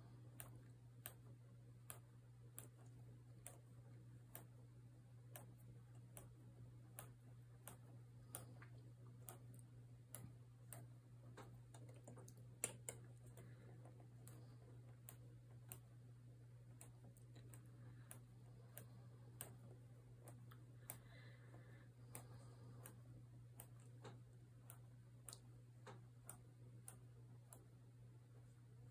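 Near silence with faint, evenly spaced ticks, close to two a second, over a low steady hum.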